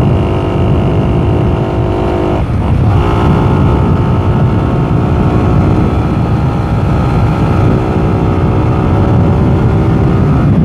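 Motorcycle engine running steadily while riding on a winding hill road, over a heavy low rumble. About two and a half seconds in, the engine tone breaks briefly and settles at a new pitch.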